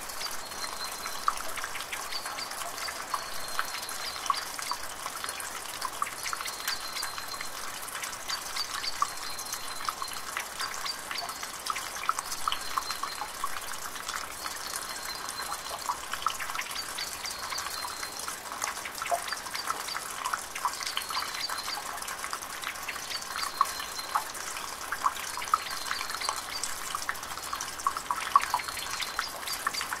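Water trickling and dripping steadily, with many small drops ticking through it. A faint, short, high note repeats every couple of seconds over the water.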